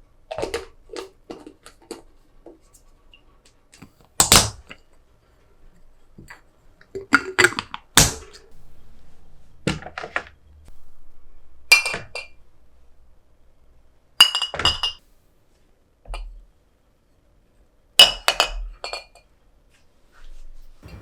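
Glass jars clinking against each other and being set down on a hard surface: a dozen or so separate knocks, a few of them ringing briefly.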